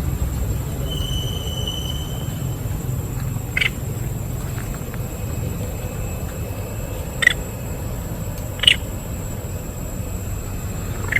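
Three short, high squeaks from a baby monkey, a few seconds apart, over a steady low background rumble.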